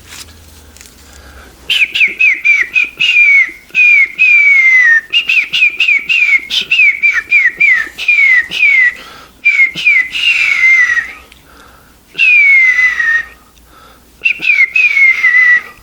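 Whistling: quick runs of short falling whistled notes, broken by a few longer downward slides, starting about two seconds in.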